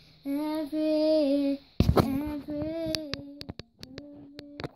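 A four-year-old girl singing a song in long held notes. About two seconds in there is a loud thump, and a run of sharp clicks sounds under her later notes.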